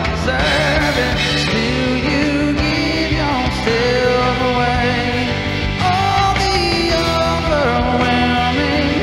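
Live worship band playing a song, with a lead singer holding and gliding between sustained notes over a full, steady band accompaniment.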